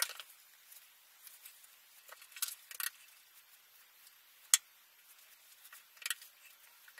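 Faint scattered taps and clicks of a paintbrush being loaded and worked while cutting in paint along a ceiling edge, with one sharp click about four and a half seconds in.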